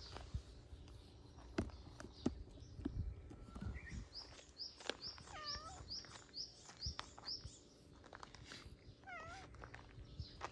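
Loose gravel crunching under footsteps, with a few sharp crunches in the first half. In the middle a bird repeats a short rising high chirp about eight times, a little over two a second. Two brief wavering calls come near the middle and near the end.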